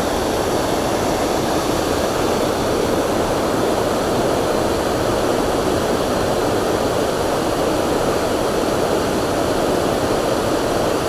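Steady roar of water pouring over a spillway, an even rushing noise with no breaks.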